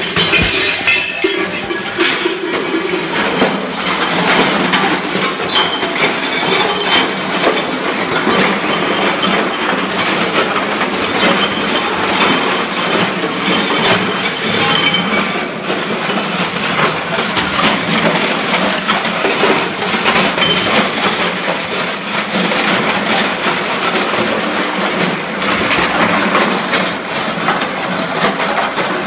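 Live harsh noise performance: a loud, unbroken wall of distorted noise full of crackle and metallic clatter, as metal objects are struck and scraped.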